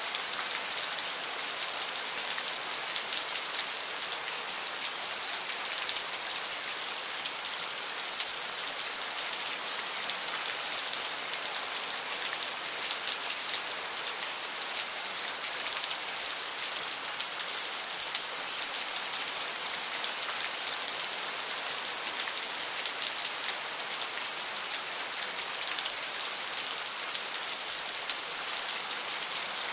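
Steady rain falling: an even hiss of many drops, with no thunder.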